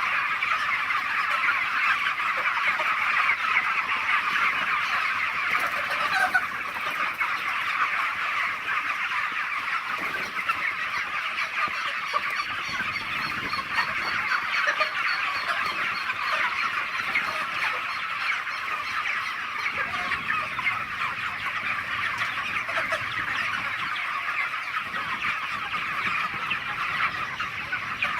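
A large flock of chickens in a poultry pen calling all at once, a steady, dense chorus of overlapping cheeps and clucks with no pause.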